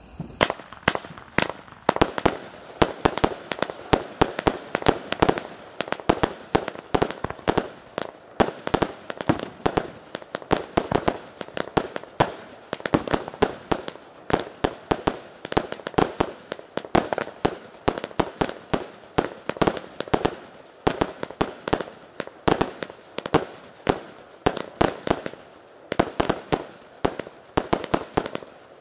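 Jorge SFC9001 firework battery firing shot after shot, a continuous barrage of launch thumps and bursting reports at several bangs a second.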